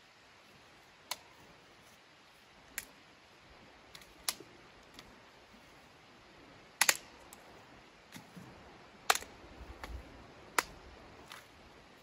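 Dry sticks cracking sharply as they are broken and gathered into a pile of kindling: a string of separate snaps, the loudest a double crack about seven seconds in.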